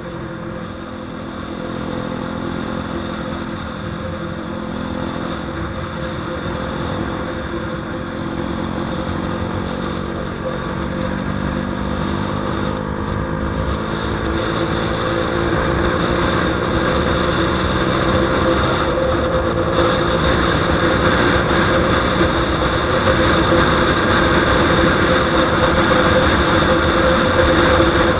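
KTM Duke 125's single-cylinder four-stroke engine running at high revs under hard acceleration, getting steadily louder, with wind noise on the microphone.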